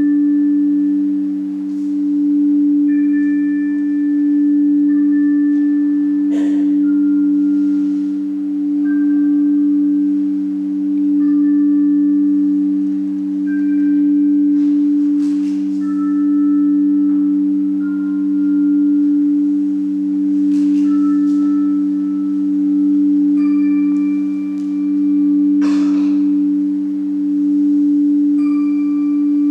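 Dance soundtrack of a steady low two-note drone that swells and fades every couple of seconds, like a rimmed singing bowl, with scattered higher chime-like tones each ringing for a second or two. A few brief rustles cut in about six, fifteen and twenty-six seconds in.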